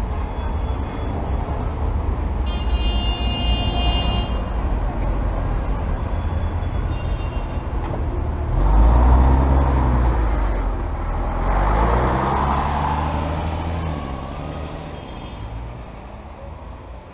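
Diesel city bus engine in street traffic, with a vehicle horn sounding for about a second and a half a few seconds in. About eight and a half seconds in, the bus engine gets much louder and revs up twice as it pulls away, then fades as it drives off.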